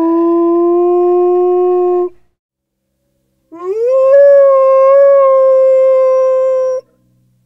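A dog howling: two long howls, each sliding up at the start and then held steady. The second begins about three and a half seconds in, and it is higher and longer than the first.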